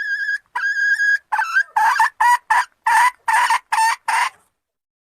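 Red junglefowl hen cackling: a drawn-out high note, a second shorter one, then a run of about eight short harsh cackles, roughly two a second, ending a little past four seconds in.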